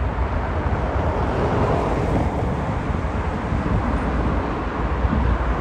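Steady outdoor rumble of wind buffeting the microphone over a continuous roar of engine noise from the road and airfield.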